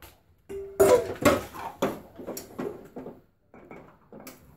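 Kitchen utensils and cookware knocking and clattering: one loud knock about a second in, then a run of lighter knocks, about two a second.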